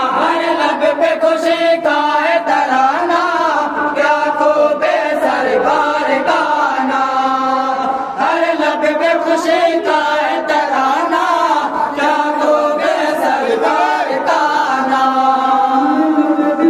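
Several men chanting devotional verses in unison, with long held, melodic notes.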